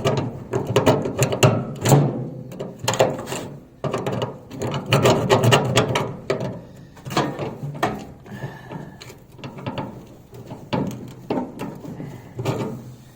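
Metal parts of a gas grill's burner assembly being worked by hand: irregular clicks, scrapes and rattles of metal on metal.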